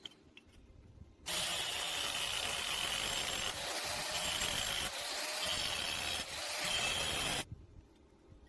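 Thin square steel pipe being cut: a harsh, loud hissing cutting noise with a wavering high edge, starting suddenly about a second in and cutting off suddenly about six seconds later.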